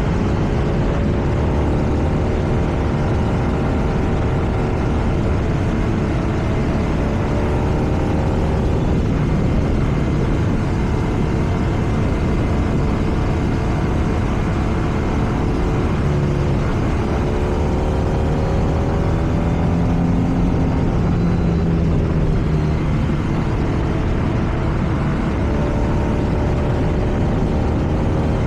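BMW R nineT's air/oil-cooled boxer twin under way on the road, its exhaust note rising and falling gently with the throttle, over steady wind and road noise.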